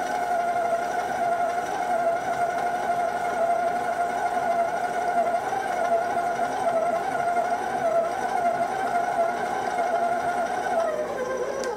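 KitchenAid bowl-lift stand mixer's motor running steadily at an even pitch while mixing a dry gingerbread dough, slowing and stopping near the end.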